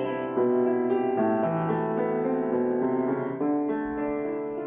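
Piano playing a slow accompaniment: held chords, with new notes struck about every second.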